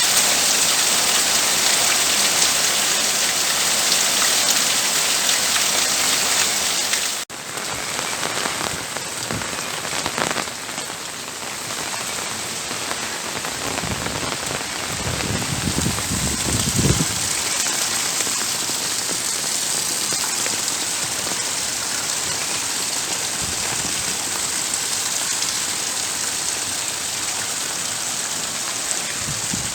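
Steady rain pattering on a roof. About seven seconds in the sound cuts out for an instant and resumes a little softer, and a brief low rumble comes through about fifteen seconds in.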